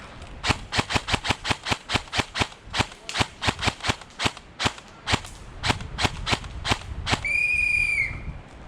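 Airsoft guns firing a long run of sharp cracks, about four or five a second. Near the end comes a steady high-pitched tone lasting about a second.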